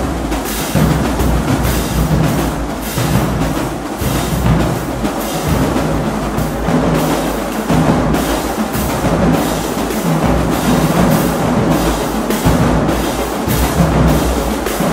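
Marching drumline of snare drums, pitched bass drums and crash cymbals playing a fast percussion feature, with sharp snare and cymbal hits over a deep bass-drum rumble.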